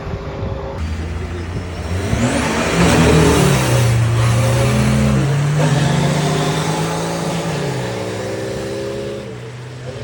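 A mud-drag 4x4's engine revving hard on a run, loudest about three seconds in, then dropping in pitch and fading away near the end.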